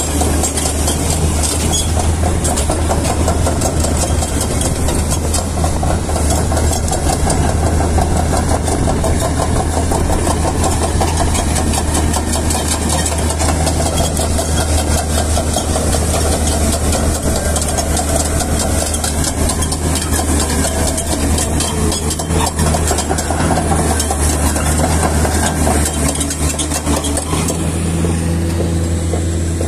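Komatsu PC450LC hydraulic excavator's diesel engine running steadily as the machine travels on its steel tracks. The sound changes slightly near the end.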